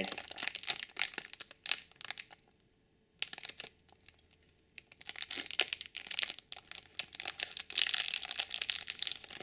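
Small plastic blind bag being torn open and crinkled in the hands: crackling in bursts, with short pauses between them.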